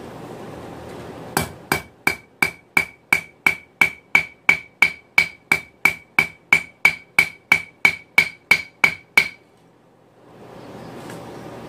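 Blacksmith's hand hammer striking a glowing 5/16-inch round steel rod on the anvil horn, about twenty evenly paced blows at roughly three a second, each with a high ringing ping. The hammering starts about a second and a half in and stops about nine seconds in.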